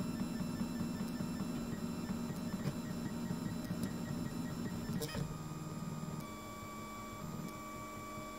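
Printrbot Simple 3D printer's stepper motors singing in steady pitched tones as the print head and bed move while printing, the pitch and pattern changing with each move. A single sharp click about five seconds in.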